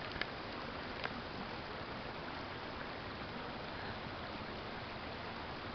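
Steady rain falling on a pond's surface, an even soft hiss, with two faint ticks in the first second or so.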